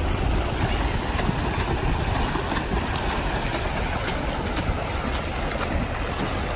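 Water splashing and churning from several swimmers swimming freestyle side by side, their kicks and arm strokes throwing up spray. A steady low rumble sits underneath.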